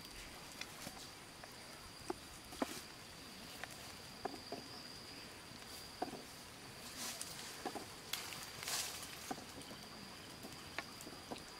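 A steady high insect trill on one tone, with scattered light clicks and knocks and a few short rustles as green bamboo poles are handled and laid over a wood fire.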